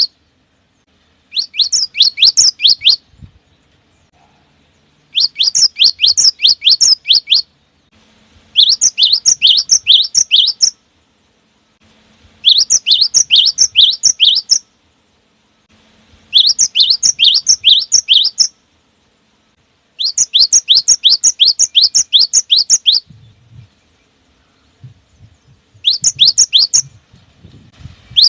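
A cinereous tit (gelatik batu) singing: about seven bursts of rapid, sharp, high repeated notes, each burst about two seconds long, with short silent gaps between them.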